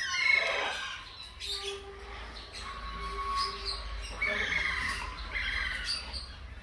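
Newborn hamster pups squeaking: several high, thin squeaks, some falling in pitch, over light rustling and crackling of dry seed-husk bedding.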